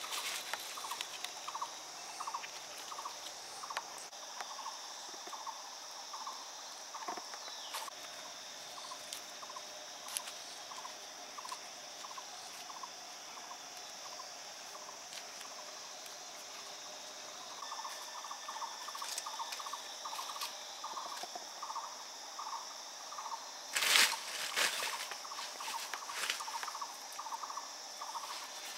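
Forest ambience: a steady high insect drone with an animal calling in a regular run of short notes, about two a second. About 24 seconds in there is a loud, brief crackling rustle.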